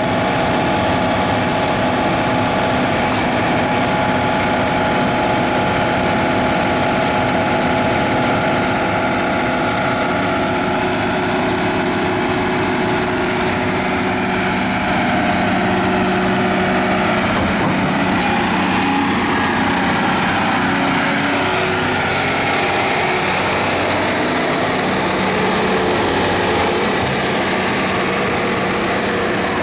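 Volvo EC460BLC crawler excavator's diesel engine running steadily. A higher whine wavers up and down in pitch past the middle.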